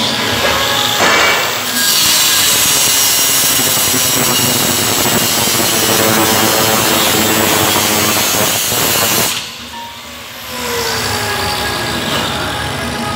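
Handheld angle grinder starting up and grinding steel for about seven seconds, then switched off, its whine falling as the disc spins down.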